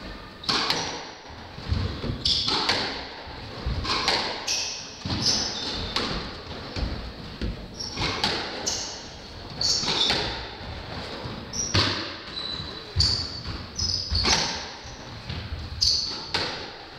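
Squash rally: the ball cracking off rackets and walls about once a second, with shoes squeaking on the wooden court floor between shots.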